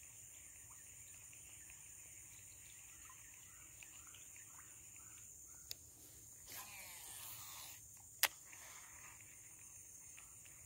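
A cast with an Abu Garcia Black Max baitcasting reel: a small click, then the spool whirring for about a second and a half as line pays out, followed by a sharp click. A steady high insect drone runs underneath.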